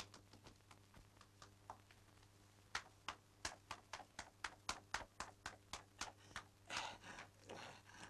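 Footsteps on cobblestones: a few faint steps, then from about three seconds in a quick run of sharp, evenly spaced steps, three or four a second, trailing off near the end.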